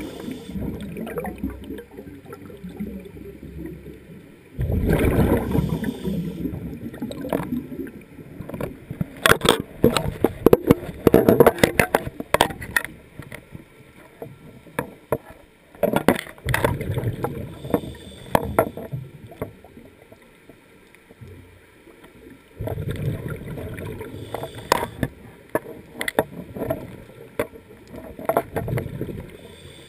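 Scuba diver breathing through a regulator, heard underwater: a burst of gurgling, crackling exhaled bubbles about every six seconds, with quieter pauses between.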